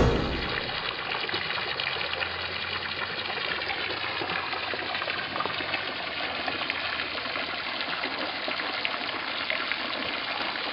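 Water splashing steadily into a swimming pool from its fountain jets.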